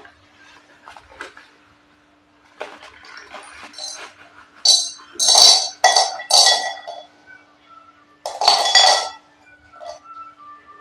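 Slate pencils being bitten and chewed: a run of sharp, brittle crunches in irregular bursts, the loudest about halfway through and again near the end.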